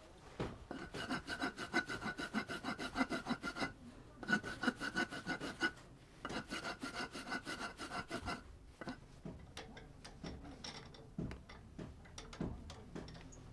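Steel hand rasp scraped rapidly back and forth across the end grain of a turned wooden vase base, several strokes a second, in three runs with short pauses between. After about eight seconds it gives way to fainter, scattered scrapes and taps.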